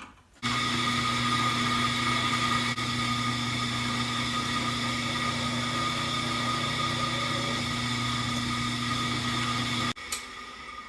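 Drill press running steadily while a small pilot bit drills the mounting holes in a welded sprocket. About a second before the end the hum cuts off sharply, and a fainter sound fades out as the press winds down.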